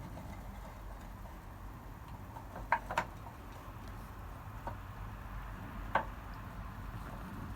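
A few short, sharp clicks or taps, four in all and spaced irregularly, over a low steady background rumble.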